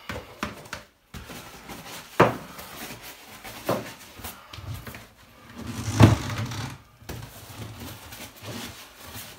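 Hand brush scrubbing wet ceramic shower tile, with a few sharp knocks and bumps, the loudest about six seconds in.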